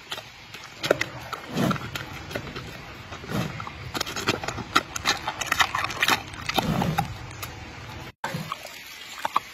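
Giant panda chewing a steamed corn bun: close-up wet mouth smacking and munching, a dense run of short clicks with a few lower, fuller chews.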